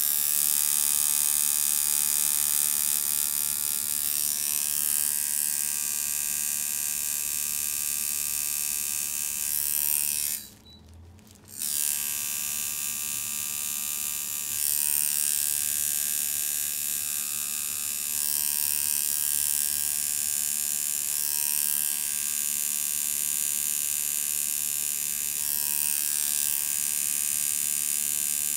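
Coil tattoo machine buzzing steadily as the needle works ink into skin. It cuts out for about a second about ten seconds in, then starts again.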